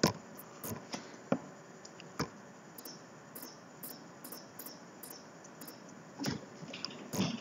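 Faint computer mouse clicks, a dozen or so short sharp clicks at irregular intervals, with two slightly louder soft noises near the end.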